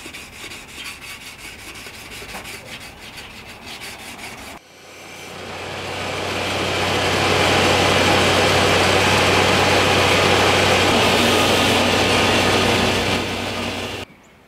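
Rapid back-and-forth rubbing of an abrasive along a steel dagger blade, hand-sanding, for about four and a half seconds. Then, after a sudden change, a motor-driven workshop machine runs loud and steady with a low hum and a hiss: it builds over about two seconds, holds, and stops suddenly near the end.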